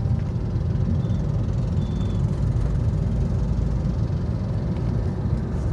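Maruti Vitara Brezza heard from inside the cabin as it pulls away from a stop, the engine working up through the revs under light throttle. It is a steady low engine drone mixed with tyre and road rumble.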